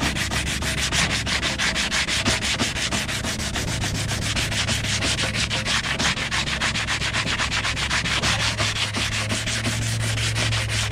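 Dried body filler on a Nuffield tractor bonnet being sanded down, with rapid, even back-and-forth strokes several times a second.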